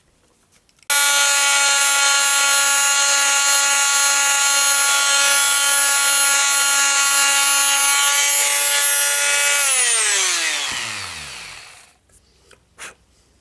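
Electric triangular-pad detail sander switched on about a second in and running at a steady high whine while sanding the engine's crankshaft stub, where the belt pulley binds. It is switched off and its whine falls in pitch as it winds down over about two seconds. A couple of small knocks follow near the end.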